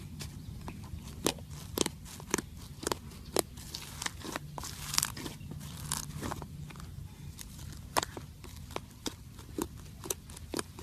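Sponge slime being squeezed and pressed, giving irregular sharp crunches and crackles, with a denser crackling stretch about halfway through.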